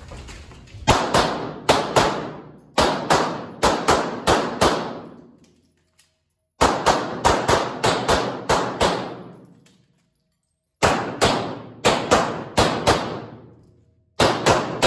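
Glock 26 9mm pistol firing rapid strings of shots, mostly in quick pairs, with short pauses between strings as the shooter moves to new positions. Each shot rings with a reverberant tail off the walls of the indoor range.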